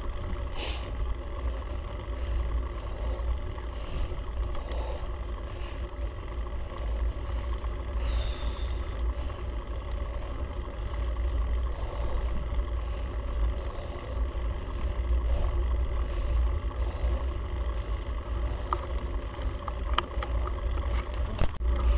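A vehicle engine runs steadily under load on a steep climb, with a constant low rumble of wind and road noise.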